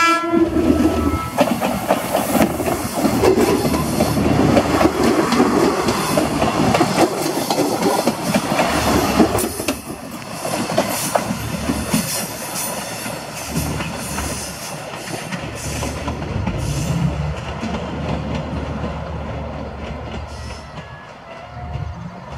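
Diesel passenger train passing close by, its wheels clattering over the rail joints with the engine running underneath. After about ten seconds it turns into a fading rumble as the train runs away into the distance.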